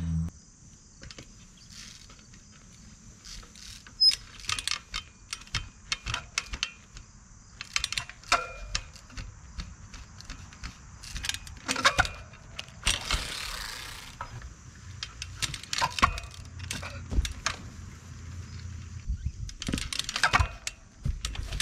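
24-inch Echo trials bike being hopped on its rear wheel: irregular clicks, rattles and knocks of the bike's drivetrain and hardware with each hop and landing, with a brief hiss about halfway through. Insects chirr steadily in the background.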